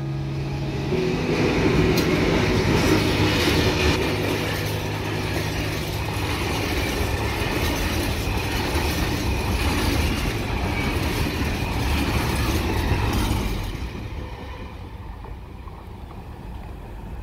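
A freight train of hopper wagons hauled by a diesel locomotive passing close by: a steady rumble and clatter of wheels on the rails. About 14 seconds in it drops to a quieter rumble as the train moves away.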